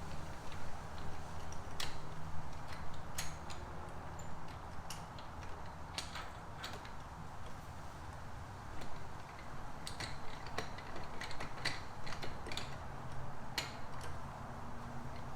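Irregular light metallic clicks and ticks of hand tools working a frame-slider mounting bolt into the motorcycle frame, over a low steady hum.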